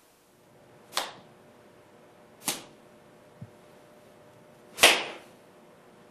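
Hand and forearm strikes on a speed bag: three sharp slaps about a second and a half to two seconds apart, the last the loudest, with a faint knock between the second and third.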